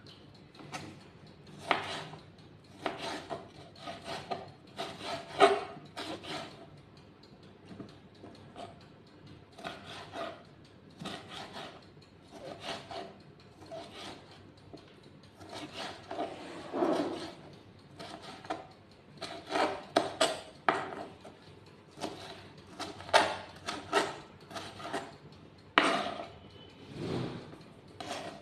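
Kitchen knife cutting tomatoes on a plastic cutting board: irregular knocks of the blade on the board mixed with short scraping strokes.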